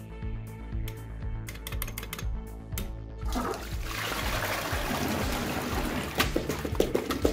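Toilet flushing: water rushes into the bowl and swirls around a plastic ball from about three seconds in, over background music.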